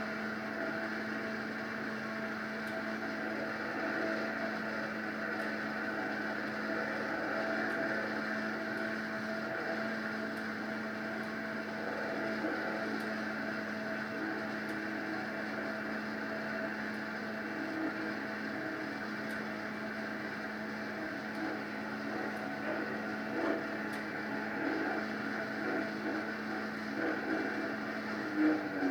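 Mini jet boat's small engine running at a steady speed, holding one even pitch, with the engine speed picking up slightly at the very end.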